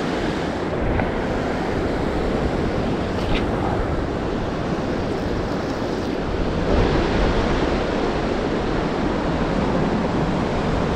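Ocean surf washing steadily against sea rocks, with wind on the microphone.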